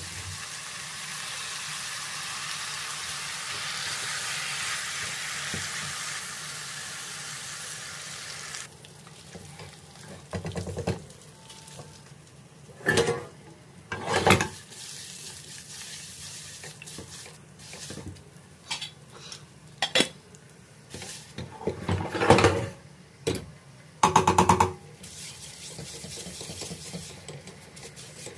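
Vegetables sizzling as they fry in a pan, a steady hiss that stops abruptly about nine seconds in. After that comes a silicone spatula stirring and scraping vermicelli and rice in metal pots, with several sharp knocks and clatters of spatula and pots, some of them ringing briefly.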